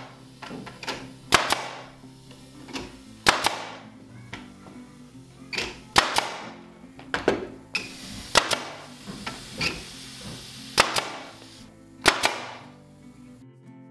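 Pneumatic staple gun firing about a dozen sharp shots into wood, one every second or two and sometimes in quick pairs, as staples are driven at an angle to toenail a wooden corbel in place.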